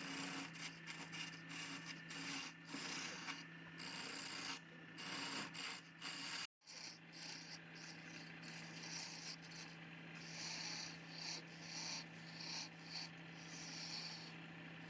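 Wood lathe running with a steady motor hum while the spinning workpiece is worked by hand, giving irregular rasping, rubbing strokes. The sound drops out abruptly for a moment about six and a half seconds in.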